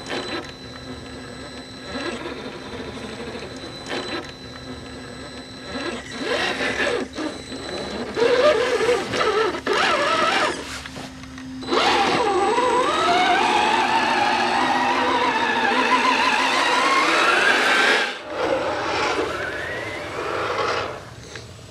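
Electric motor and gearbox of an RC scale crawler truck whining, the pitch wavering with the throttle. Past the middle a long whine climbs steadily for several seconds, then cuts off suddenly.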